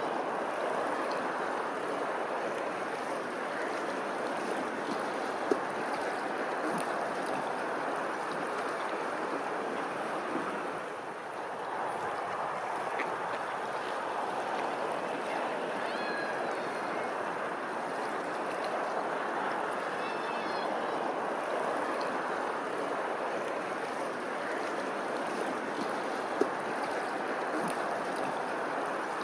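Steady rush of running water, briefly dropping in level about eleven seconds in, with two single sharp clicks.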